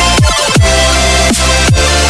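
Background electronic dance music with a heavy bass and a steady beat of falling-pitch bass drum hits.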